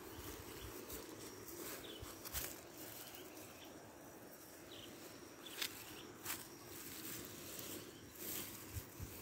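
Faint rural outdoor ambience, with a few short scattered rustles or clicks.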